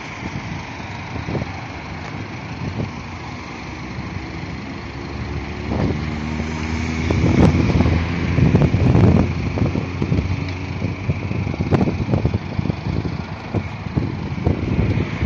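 BMW 320d's four-cylinder diesel engine idling steadily, becoming louder about six seconds in, with wind buffeting the microphone.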